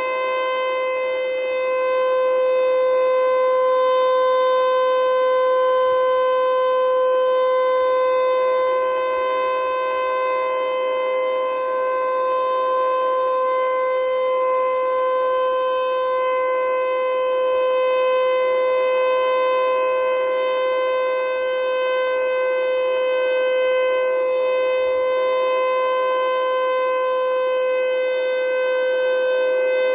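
Federal Signal Eclipse8 electronic outdoor warning siren sounding a loud, steady tone during a tornado siren test. The pitch holds level and rich in overtones, while the loudness swells and eases gently.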